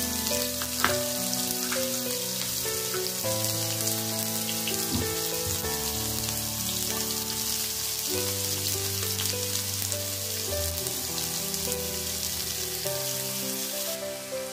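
Chopped onions frying in ghee, a steady high sizzle, over soft background music of held keyboard-like notes.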